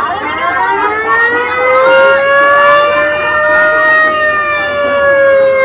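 Police car siren on a vintage black-and-white squad car, winding up in one long rising wail that peaks about four seconds in, then slowly falls.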